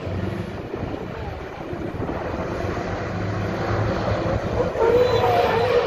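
Scania 144's V8 turbo diesel engine running hard as the tractor unit spins its rear tyres in a burnout, getting louder in the second half, with a held squeal-like tone from about five seconds in.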